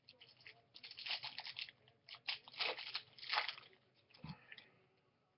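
Crinkly foil wrapper of a baseball card pack being torn open and crumpled, in several crackling spells, followed by a soft thump about four seconds in.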